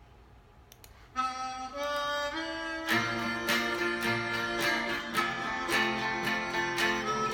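Instrumental intro of a country song: a harmonica plays a melody in held notes, starting about a second in, joined about three seconds in by a strummed acoustic guitar in a steady rhythm.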